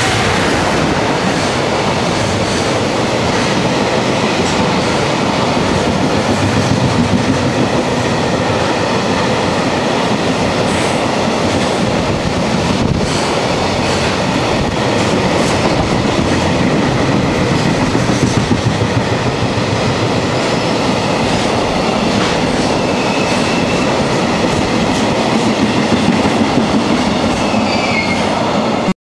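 Container freight train behind an EF210 electric locomotive running through at speed: a steady, loud rumble and rattle of wheels on the rails with rail-joint clicks as the wagons pass. A faint high wheel squeal comes in near the end.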